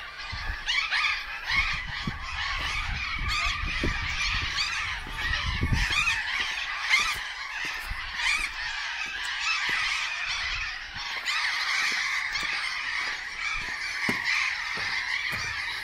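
A flock of birds calling without a break, many short calls overlapping, with a low rumble underneath through the first few seconds.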